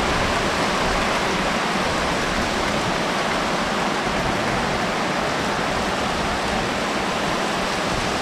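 Heavy downpour of rain and hail: a loud, steady, even hiss of water and ice hitting the ground.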